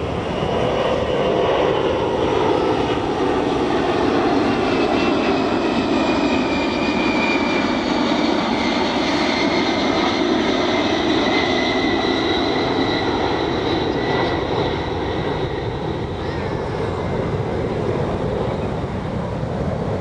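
Jet noise from the four turbofan engines of the Boeing 747 Shuttle Carrier Aircraft, carrying Space Shuttle Endeavour, as it flies low overhead: a loud, steady roar with a high whine that slides slowly down in pitch as the aircraft passes.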